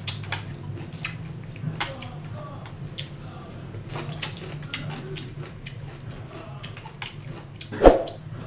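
Chopsticks and a fork clicking and scraping against a metal tray, with chewing and lip-smacking, over a steady low hum. One louder bump about eight seconds in.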